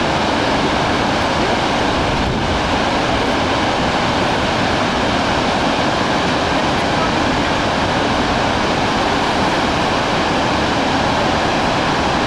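Gullfoss, a large two-tiered waterfall, sending a heavy flow of water down its cascades in a loud, steady rush that does not let up.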